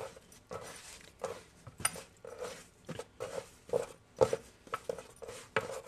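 Hands kneading and shaping a soft yeast bread dough on a floured wooden board: irregular soft pats and thumps, roughly two a second.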